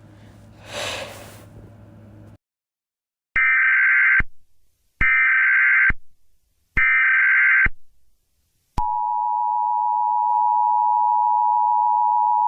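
Emergency Alert System SAME header: three harsh data bursts of about a second each, a second apart. About a second after the last one comes the steady two-tone EAS attention signal, which holds on.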